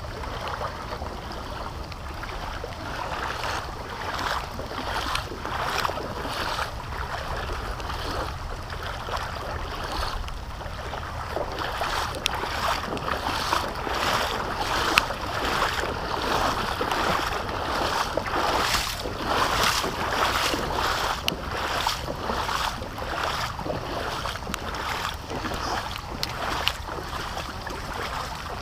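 Floodwater rushing steadily, with repeated splashing surges about once or twice a second from a few seconds in.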